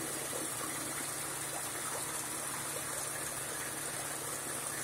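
Water running steadily into a well-water storage tank, with a steady low hum underneath.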